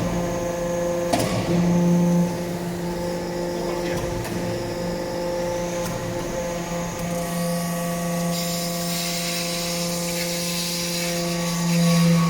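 Hydraulic briquetting press for copper chips running, its power unit humming steadily. The hum swells louder twice, and a hiss joins it from about two-thirds of the way in.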